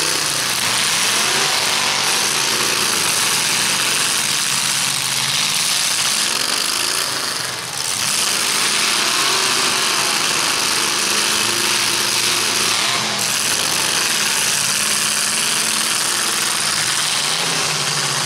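Several demolition-derby trucks' engines running loudly together, their pitch rising and falling as the drivers rev them.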